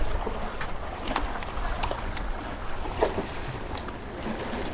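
Seaside wind and surf rumbling against the jetty rocks, with several sharp clicks and taps scattered through it.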